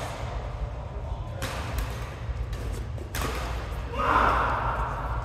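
Badminton rackets hitting a shuttlecock in a doubles rally: sharp hits, about four of them, a second or so apart, over a steady low hum in the hall. About four seconds in there is a brief louder burst of sound.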